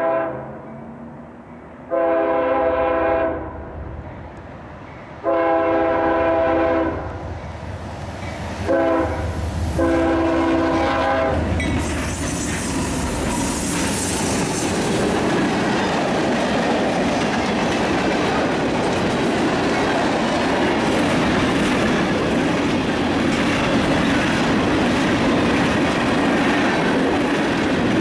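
Freight locomotive air horn sounding a chord in separate blasts: the end of one, two long blasts, a short one and a final long one, the pattern of a grade-crossing signal. Then the train passes close: the diesel locomotives, including an EMD SD40-3, go by, followed by a steady rumble and clickety-clack of freight-car wheels over the rails.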